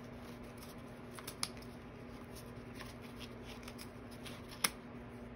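Scissors snipping through fabric: scattered light snips, with one sharper snip near the end.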